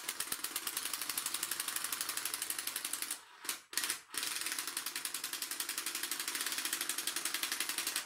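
Milwaukee cordless impact driver hammering in a fast, even rattle as it drives a screw through a steel angle bracket into an aluminium bar at low speed. It stops just after three seconds, gives a short burst and resumes about a second later until the screw is snug.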